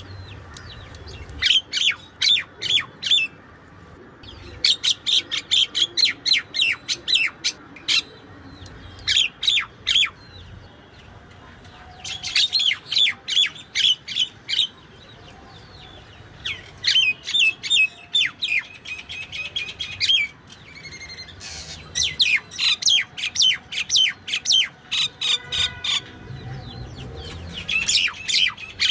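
Small birds chirping: quick runs of sharp, high, repeated notes in bursts of five to ten, coming every few seconds.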